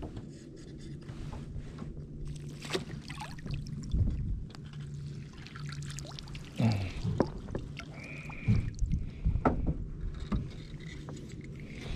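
Low steady hum of a small boat's electric trolling motor for about the first half, with scattered clicks and knocks from rod-and-reel handling and a brief high squeak about eight seconds in.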